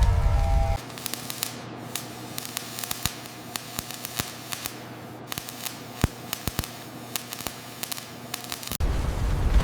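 Welding arc running: a steady hiss with irregular sharp crackles and pops, typical of stick (SMAW) welding. Loud music cuts off just under a second in, and a loud low rumble comes in near the end.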